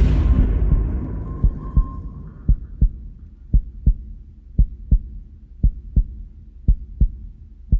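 Heartbeat sound effect: paired low thumps, one pair about every second, starting about two and a half seconds in. Before them a loud boom fades away over the first two seconds.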